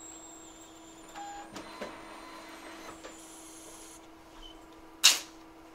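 Steady low hum of microsoldering bench equipment, with small scraping and clicking of tools on the board and one sharp click about five seconds in.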